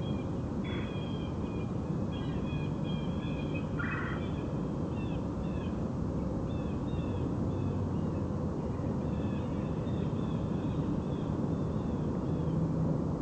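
Red-bellied woodpecker calling: runs of short, high, rolling notes repeated in series with pauses between them, over a steady low background rumble.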